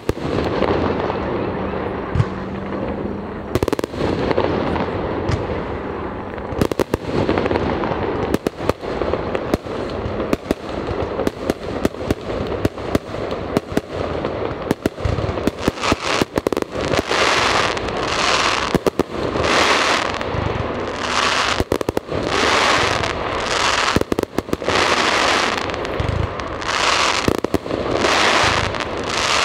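Aerial fireworks shells bursting in rapid succession, with sharp bangs throughout. From about halfway, a run of hissing bursts about once a second, as glittering shells break one after another.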